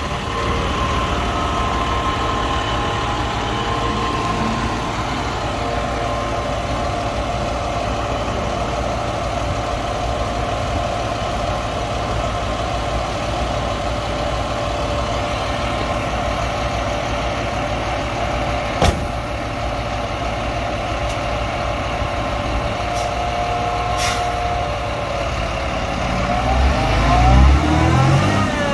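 Diesel engine of a 3,000-gallon jet fuel refueler truck idling steadily, with a single sharp knock about two-thirds of the way through. Near the end the engine revs up and the truck pulls away.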